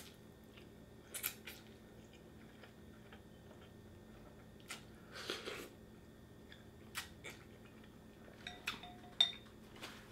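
Eating sounds: ramen noodles and broth being chewed and slurped from a soup spoon, with a longer slurp about halfway through. A few light clicks of chopsticks and spoon against a glass bowl, and a ringing clink near the end, the loudest sound.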